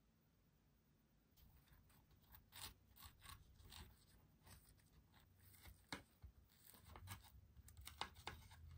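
Metal fork cutting through a crisp, syrup-topped pancake and tapping and scraping on the plate beneath. Irregular small clicks and scrapes start about a second and a half in, with sharper taps near the middle and near the end.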